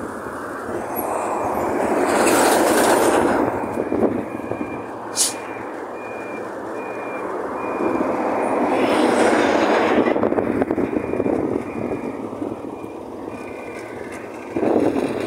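Traffic passing close by on a road, two vehicles going by with a rush that rises and falls, while a vehicle's reversing beeper sounds short even beeps a little more than once a second. A sharp click about five seconds in.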